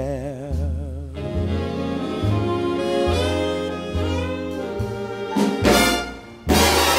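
Background music: a horn-led instrumental break of a swing-style song between sung lines, over a steady bass line; the full band comes in louder about six and a half seconds in.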